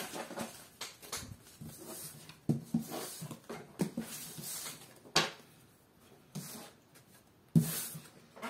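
Tarot cards being gathered up off a wooden tabletop by hand: cards sliding and scraping across the wood, with scattered taps and knocks as they are picked up and squared. The loudest knock comes near the end.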